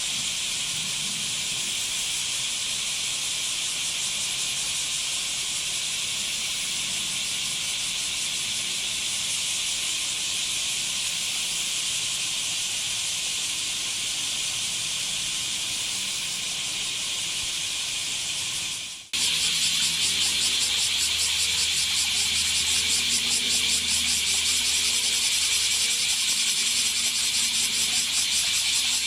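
A chorus of bear cicadas (kumazemi) calling as a loud, steady, shrill buzz. About two-thirds of the way through it cuts off and resumes louder, with a fast pulsing in it.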